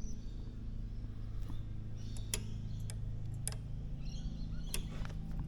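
A steady low hum with a few scattered sharp clicks and ticks at irregular moments.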